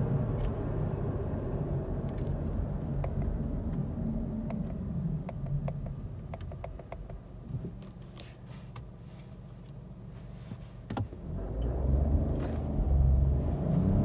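2021 Ford Focus estate's engine and road noise heard from inside the cabin, fading as the car slows to a stop. It then idles quietly with a few light clicks. About eleven seconds in comes a thump, and the engine revs hard as the car pulls away at full throttle under automatic kickdown.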